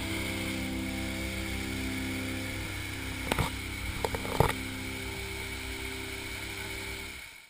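Background music of sustained, steady chords, with a few sharp clicks a little past halfway, fading out at the very end.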